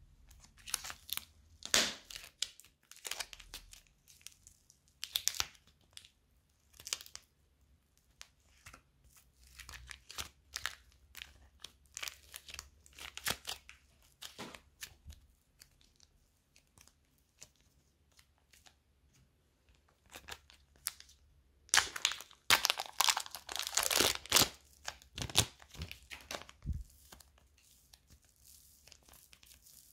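Fingers pressing and squishing slime and piped fluffy slime rosettes, making crackly, crunchy sounds in short irregular spells with quiet gaps, busiest for a few seconds about three-quarters of the way through.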